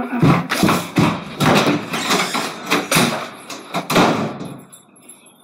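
A run of loud knocks and thumps, about eight in close succession, dying away about four seconds in.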